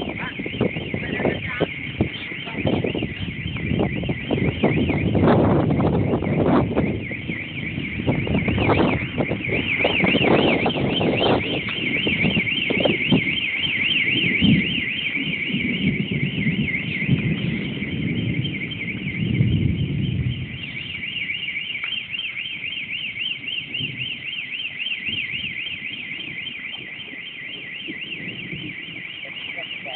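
Cicadas buzzing: a steady, high, fast-warbling drone. A low gusty rumble sits under it and eases off about two-thirds of the way through.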